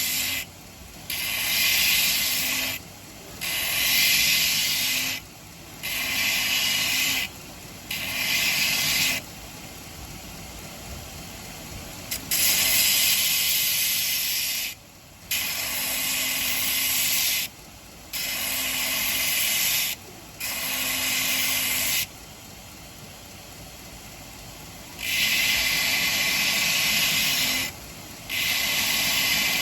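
Belt grinder sharpening a thick stainless steel cleaver on a fresh abrasive belt: a loud grinding hiss each time the blade is pressed to the belt, in about ten passes of one to three seconds. Between passes the belt keeps running more quietly.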